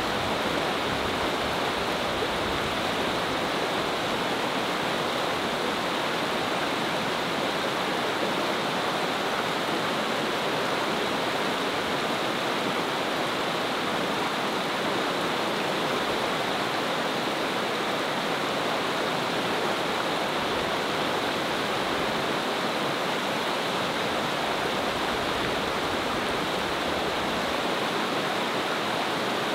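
A fast, shallow creek rushing steadily over rocks and riffles.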